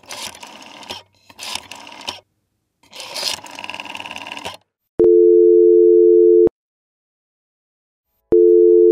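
Three short bursts of scratchy noise, then a telephone ringback tone. It is a steady two-note tone that sounds for about a second and a half, stops, and starts again near the end: the line ringing before the call is answered.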